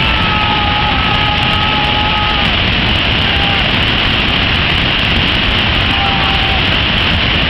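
Loud, steady roar of a large waterfall in heavy flow, heard close up, with the water churning at its base.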